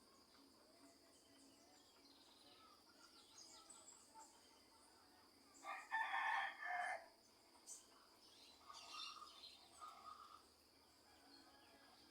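A rooster crowing once, a loud call of about a second beginning roughly six seconds in. Small birds chirp faintly around it, with a few shorter calls near the end.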